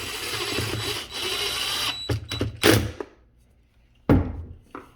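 Power drill running in two bursts of about a second each, then several knocks and clicks and a heavier thump about four seconds in.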